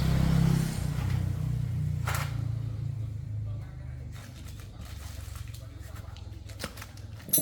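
A motorcycle engine running at a low, steady pitch, dying away about three and a half seconds in. After it come scattered light clicks and a sharp knock near the end.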